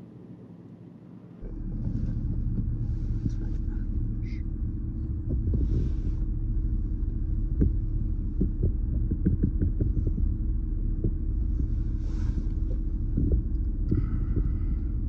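Vehicle driving on a rough road: a steady low rumble with many small rattles and knocks, which gets much louder about a second and a half in.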